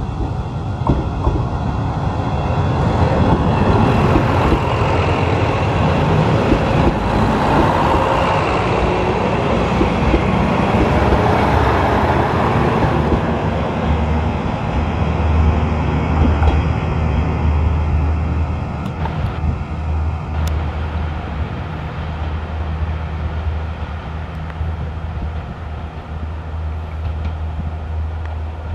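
Three-car Kanto Railway KiHa 310 diesel railcar train passing close by: diesel engines running and wheels rumbling on the rails, loudest in the first half as the cars go past. A steady low hum follows and slowly fades as the train moves off.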